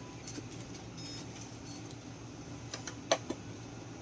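Checkout counter sounds during a card payment: light taps and a few short, high electronic beeps, then a sharp click about three seconds in and a smaller one just after, over a steady store hum.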